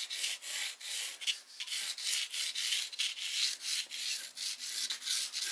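Pencil scratching across a canvas sheet in a rapid series of short sketching strokes.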